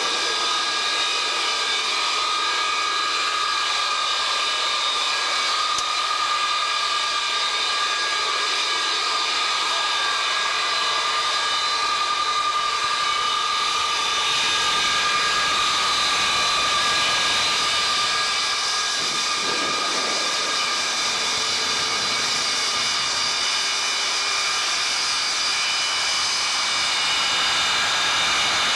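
The Pratt & Whitney J57 turbojets of a KC-135A running steadily during a maintenance ground run: a continuous jet whine of several high steady tones over a rushing noise, swelling slightly about halfway through.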